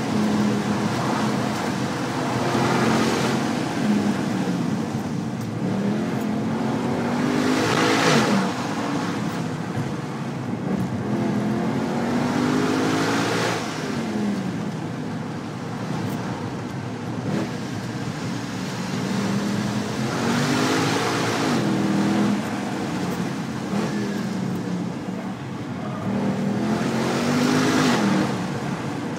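Mercedes-AMG C63's V8 engine heard from inside the cabin, accelerating and easing off again and again: its pitch climbs and drops several times, with tyre and road noise underneath.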